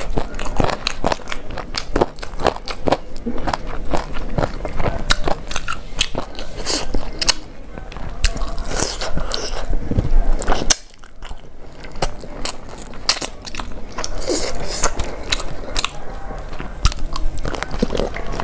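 Eating fried chicken pieces and rice by hand: biting and chewing heard as a fast run of short sharp clicks and crunches, with a brief lull about eleven seconds in.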